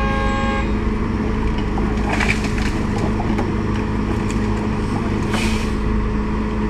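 A heavy truck's diesel engine running steadily with a deep, constant drone. A horn note fades out about half a second in, and short hisses come about two seconds in and again near five and a half seconds.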